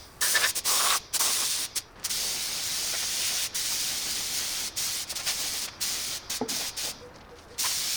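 Paint spraying in a steady hiss, cut by several brief stops and one longer, quieter pause near the end.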